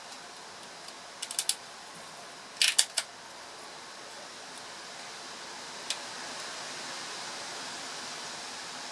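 Sharp plastic clicks as a Fiat Albea engine ECU wiring-harness connector is pried apart with a small screwdriver: a quick run of about four clicks a little over a second in, a louder cluster of three just before three seconds, and one more click near six seconds, over a steady hiss.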